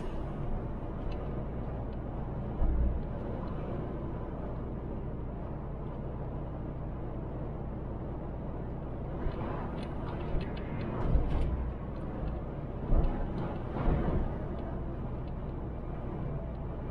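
Steady in-cab engine and road noise from a MAN TGX diesel truck cruising at motorway speed, with a few short thumps, most of them in the second half.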